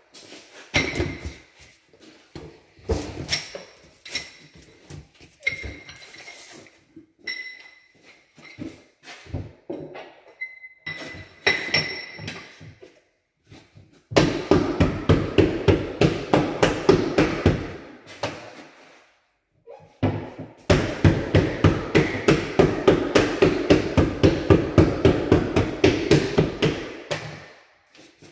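Hand work with ceramic tile and tiling tools: irregular knocks and clinks, some with a short glassy ring. Then two long runs of quick, regular strikes or strokes, about three or four a second, the second run starting about twenty seconds in.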